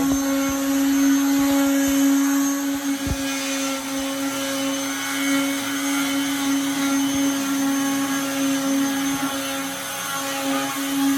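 Electric sanding machine sanding a ceiling, its motor running steadily with a constant whine.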